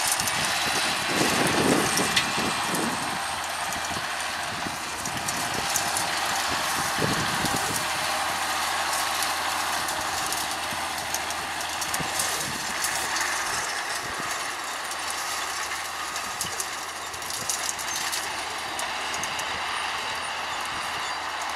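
John Deere 6930 tractor's six-cylinder diesel running steadily under load as it pulls a Claas Liner 2600 twin-rotor rake through cut grass.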